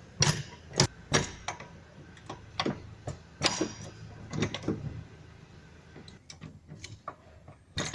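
Floor jack being worked under a car to lift it onto stands: irregular sharp metallic clicks and knocks, some in quick pairs, fewer and fainter in the second half.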